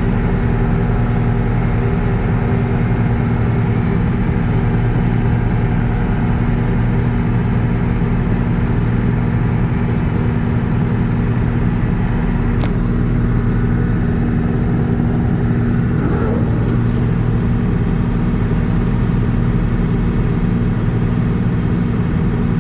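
John Deere 6620 combine's six-cylinder diesel running at a steady, even drone with a constant low hum, under load while it unloads its grain tank into a wagon.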